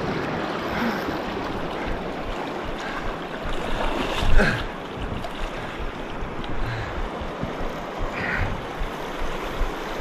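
Shallow river rapids rushing steadily close by, with some wind on the microphone and one short louder sound about four seconds in.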